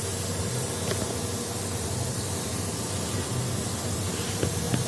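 Tractor-mounted water-well drilling rig running: a steady engine hum under a constant hiss, with a few faint ticks.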